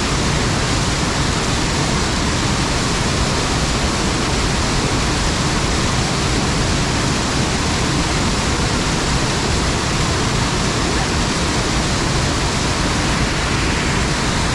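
Waterfall: heavy water falling onto rock, a loud, steady, unbroken rush.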